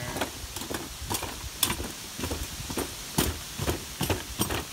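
Footsteps and the wheels of a pulled child's wagon knocking and clattering on the wooden planks of a boardwalk, in irregular knocks a few times a second.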